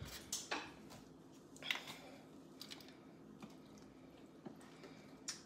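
Someone eating salad quietly: a few soft clicks and crunches, spaced irregularly, over a faint steady hum.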